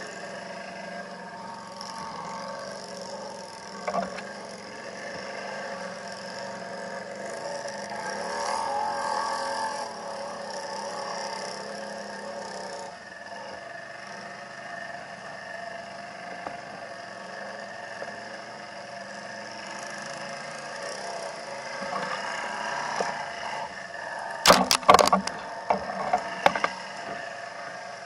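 ATV engine running under throttle while driving through a water-filled canal, its note swelling around eight to ten seconds in. A quick cluster of sharp knocks sounds about twenty-five seconds in, as the quad lurches toward the bank.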